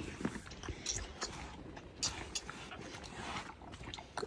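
Pigs eating and slurping whey from a wooden log trough: a run of short, irregular smacking and slurping noises.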